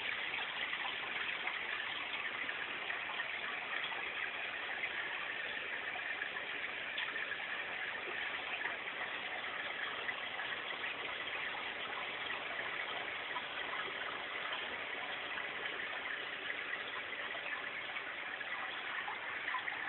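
Steady rush of moving water from a reef aquarium's circulation, its pump and overflow running constantly.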